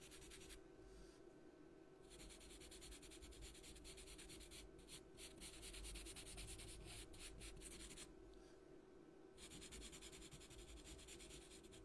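Faint scratching of a black pastel pencil stroking across paper, in short repeated strokes. It stops twice, briefly, as the pencil is lifted.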